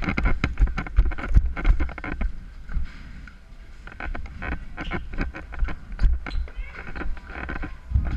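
Irregular knocks and rustling with a low rumble, from a player moving about with the camera, with footsteps among them. The sound dips quieter for a second or so just before the middle.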